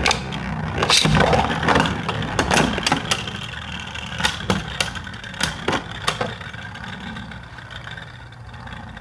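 Spinning Beyblade Burst tops whirring in a plastic stadium, with frequent sharp clacks as they hit each other and the stadium wall. The hits thin out after about six seconds and the sound slowly dies down as the tops lose spin.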